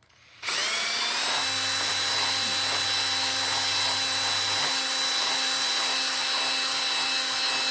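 Electric power tool switched on about half a second in: its motor whines up to speed and then runs steadily at full speed, clearing the old bush remnants out of the suspension linkage bore.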